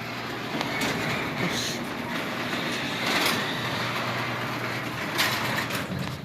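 Garage door opener running, raising the door: a steady motor hum with the rattle of the door rolling up its tracks, dying down at the very end.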